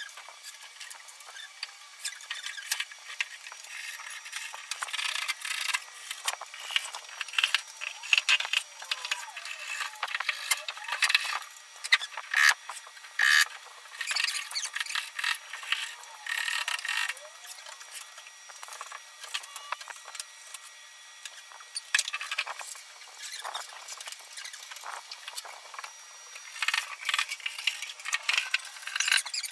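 Fast, high-pitched clatter of flat-pack cabinet assembly: rapid clicks, knocks and squeaks of panels, hardware and hand tools, the sound sped up along with the footage.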